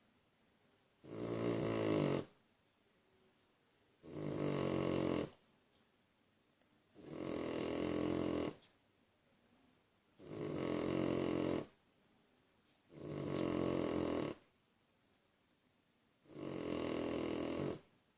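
Steady rhythmic snoring: six long, buzzing snores, each just over a second, coming about every three seconds with quiet breaths between.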